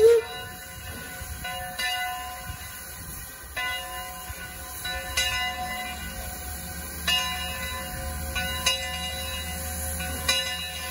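Background music of sustained, bell-like notes, a new chord struck about every two seconds.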